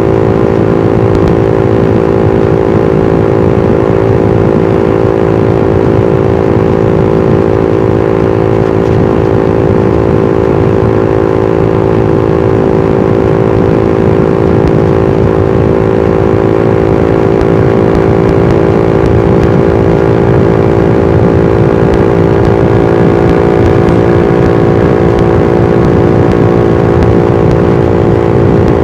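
Suzuki GSX-R150's single-cylinder engine and exhaust running at steady cruising revs, the pitch holding almost constant, over a constant rushing noise.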